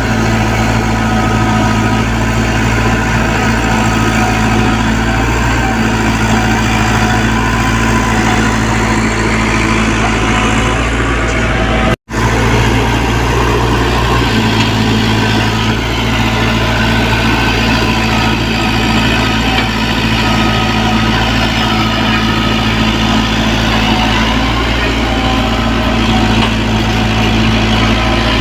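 Diesel engine of a Komatsu PC75UU mini excavator running steadily while it digs, with a momentary break in the sound about twelve seconds in.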